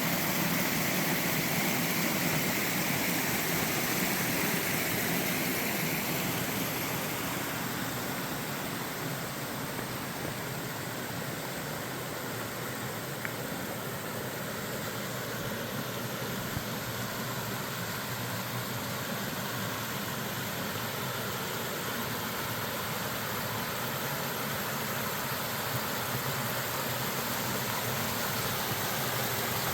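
Steady rushing of a waterfall on a gorge stream, a constant hiss of falling water, a little louder in the first few seconds.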